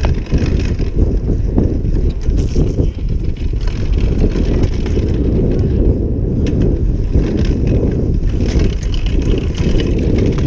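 Wind rumbling on the microphone of a camera riding on a mountain bike, with the bike's tyres and frame rattling and knocking over a bumpy dirt trail.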